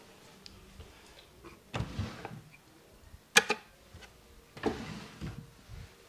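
Hands working over a head and neck in a massage: rubbing and slapping on skin and hair in short separate strokes, with a sharp double smack about three and a half seconds in, the loudest sound.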